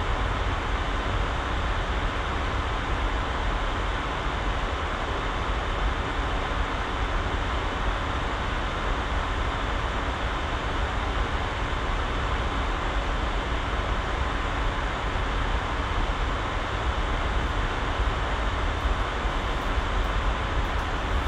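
Flour-coated catfish frying in hot oil: a steady, even sizzle with a low rumble underneath.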